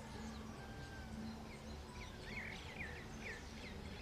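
Small birds chirping: short whistled chirps, several in quick succession past the middle. Underneath runs a faint steady low hum.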